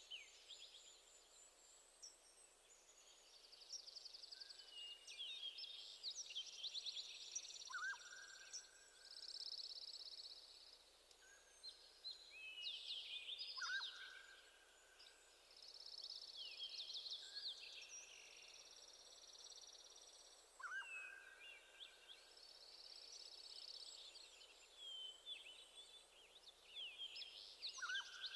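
Faint birdsong: several birds chirping and trilling high up, with a lower whistled note repeating every few seconds.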